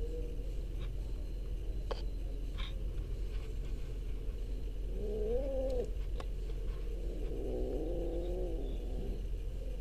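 A kitten giving two drawn-out, wavering cries: a short one about five seconds in and a longer one from about seven seconds, with a few light clicks earlier.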